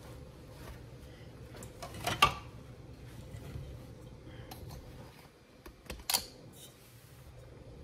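Kitchen handling noises: a plastic measuring jug and utensils being picked up and knocked on the counter, with a sharp knock about two seconds in and a couple of lighter clicks around six seconds in, over a low steady hum.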